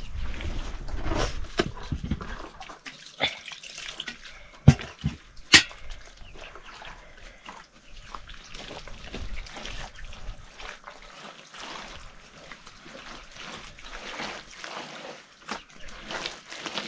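Wet mud plaster being smeared by hand over an earthen floor: irregular wet slaps, scrapes and drips, with two sharp knocks about five seconds in.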